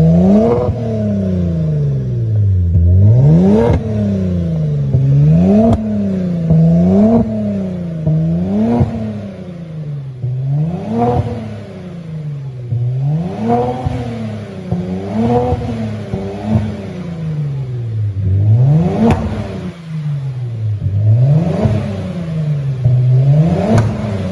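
Kia Stinger's engine revved again and again through a cat-back exhaust with Sirrush high-flow mufflers: about a dozen quick blips, each rising in pitch and falling back. A few sharp cracks are heard among the revs.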